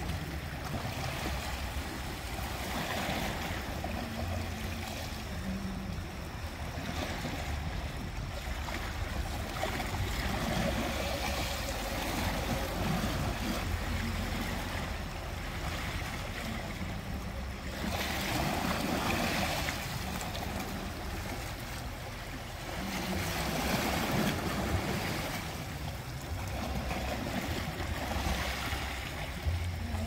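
Small sea waves lapping and splashing against the rocks at the shore. The wash swells and eases every several seconds.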